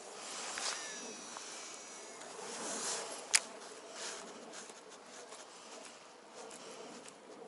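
Shimano Calcutta Conquest DC 200 baitcasting reel during a cast: the I-DC5 digital brake gives a buzzing whine that slowly falls in pitch as the spool slows. There is a sharp click right at the start and a louder one about three seconds in.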